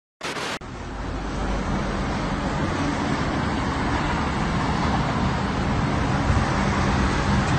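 A brief hiss of TV static near the start, then steady outdoor road-traffic noise: car engine and tyre rumble with an even hiss.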